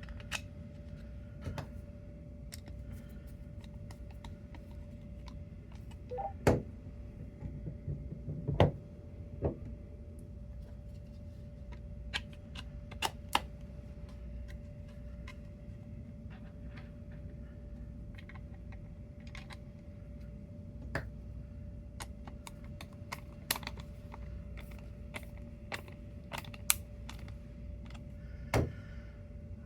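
Irregular clicks and knocks of 3D-printed PETG enclosure parts being handled and fitted together, over a steady low hum.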